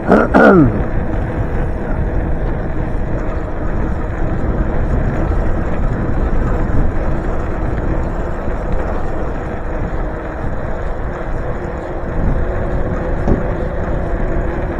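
Steady wind and road noise on a bicycle ride, with a short loud sound that drops steeply in pitch right at the start.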